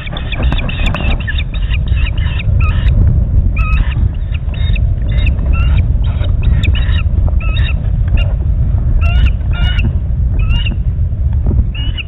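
Ospreys calling: a series of short, sharp, high chirps, quick and close-set for the first couple of seconds, then spaced to about one or two a second, over a steady low rumble.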